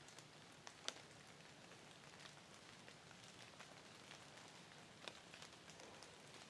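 Faint rain: a steady light patter with scattered sharper ticks of single drops landing close by.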